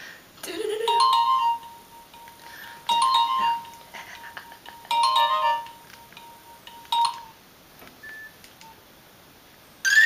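Mobile phone ringtone playing from the phone: a short chiming melodic phrase repeating about every two seconds over a held tone, stopping about seven seconds in, with another chime starting at the very end.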